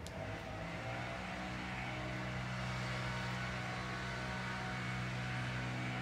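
A motor running steadily, giving an even low hum, with a faint click at the very start.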